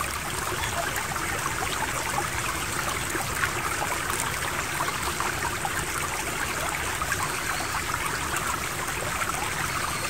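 Mountain stream water babbling and splashing over rocks, a steady flow of running water.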